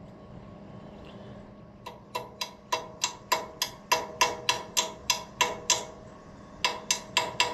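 Hammer tapping on steel, sharp strikes that each ring briefly at the same pitch, about three or four a second. After a short pause comes a quicker run near the end. This is the sound of an easy out being driven into a drilled-out broken bolt.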